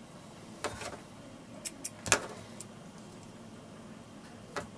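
A few small, sharp clicks and taps as fingers work thread through the metal guides on the head of a 1924 Singer class 15 sewing machine, the loudest about two seconds in.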